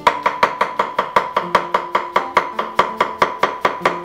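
Chef's knife chopping a cucumber on a wooden cutting board, in quick even strokes about six a second.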